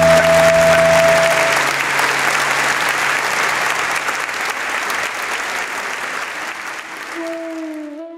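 Audience applauding, a dense patter of clapping that fades out gradually, as the last held notes of a string piece die away in the first few seconds.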